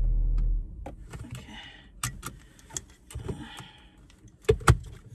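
Car engine idling with a steady low hum, switched off about half a second in. Then keys jangling, small clicks and rustling of clothing as the driver moves in the seat, and two sharp knocks close together near the end.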